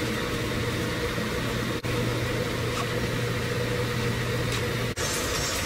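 Steady low machinery hum and hiss of a cargo ship's bridge under way, with a faint steady tone above it; the sound drops out briefly twice, and the low hum is gone after about five seconds.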